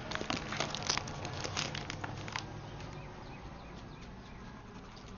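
A deer picking popcorn off a concrete sidewalk and chewing it: a quick run of small crunching clicks for the first two seconds or so, then much fainter.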